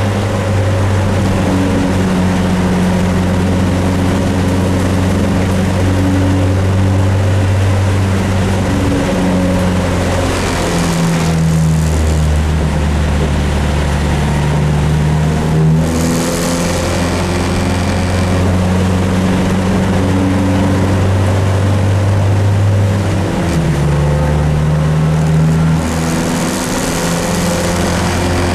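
Dodge Neon race car's four-cylinder engine running under load, heard from inside the cabin, its note dropping and rising a few times as the car slows and speeds up. There is a steady hiss of rain and tyre spray underneath.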